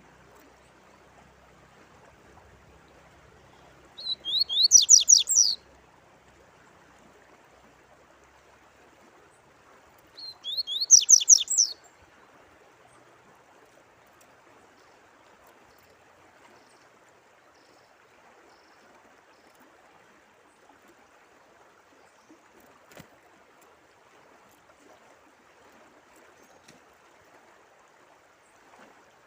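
A songbird singing two short, fast phrases of high notes about six seconds apart, over the steady sound of running water.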